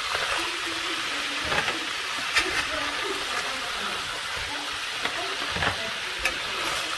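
Hot oil sizzling steadily in a metal pot of fried crab pieces, with a few sharp clicks of a metal slotted spoon knocking against the pot as the crab is scooped out.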